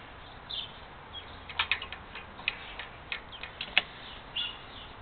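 A run of light, irregular clicks and taps from engine parts and hand tools being handled during reassembly of a small lawn-tractor engine, busiest in the middle of the stretch.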